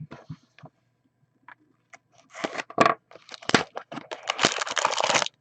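A trading card pack wrapper being torn open and crinkled by hand, a few light clicks first, then about three seconds of dense tearing and crinkling.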